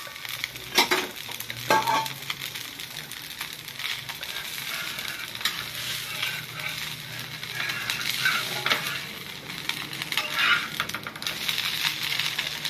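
Rava dosa sizzling on a hot dosa tawa while a steel spatula scrapes under it to lift and fold it; a few sharp scrapes in the first two seconds, then a steady sizzle with lighter scraping.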